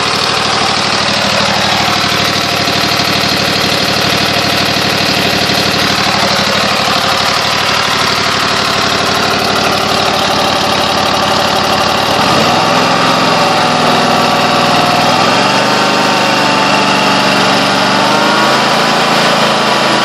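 Small lawn mower engine running on gasoline vapor sucked from a jar through a bubbler tube into its air intake, its fuel tank empty. It runs steadily, then picks up speed in a few steps about two-thirds of the way through.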